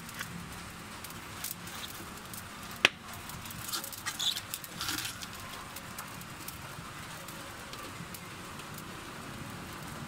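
Vegetables tipped from a steel bowl into a pot of simmering soup over a wood fire: a few soft rustles and splashes, with one sharp knock about three seconds in, over a steady low hiss.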